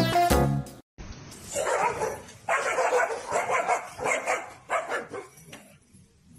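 A dog barking, a run of about five or six barks in quick succession, trailing off near the end; a bit of music cuts off just before.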